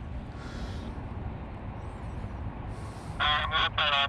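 A crow cawing: a quick run of three harsh caws starting about three seconds in, over a faint steady outdoor background.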